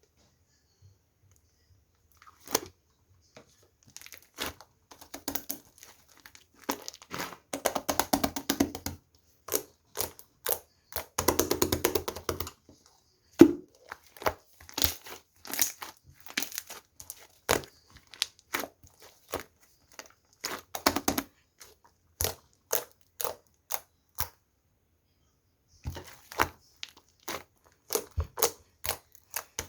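Thick slime being squeezed and stretched by hand, giving many sharp clicking pops, with longer runs of dense crackling about 7 and 11 seconds in.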